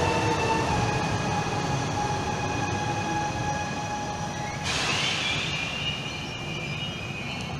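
Electric multiple-unit regional train moving away along the platform, its traction motors giving a steady multi-tone whine over a rumble that slowly fades as it recedes. A little past halfway, a sharper high hiss and squeal from the train cuts in for a few seconds.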